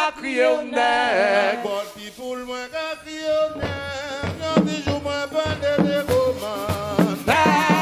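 Live band music with hand drums: a man sings lead in long wavering notes, and the percussion grows louder and busier about six seconds in.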